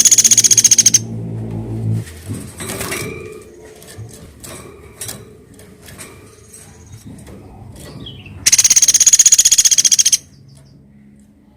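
A woodpecker giving a loud, rapid, high-pitched rattling trill, once at the start and again for about a second and a half near the end, with faint scattered clicks between. A low steady hum runs under the first rattle and stops about two seconds in.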